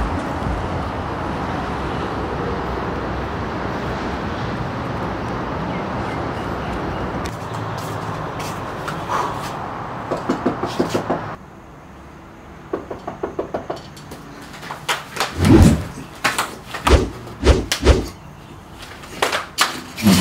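Steady background noise, then a quick run of about six knocks on a door, followed by several loud bangs and rattles as a glass-panelled door is handled and opened.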